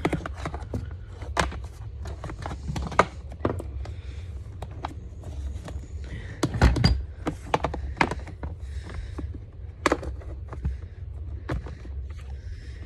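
Scattered plastic clicks and knocks from a Ridgid NXT shop vacuum being handled while its power cord is wrapped and clipped onto the handle, with the loudest knock about seven seconds in. The vacuum is not running.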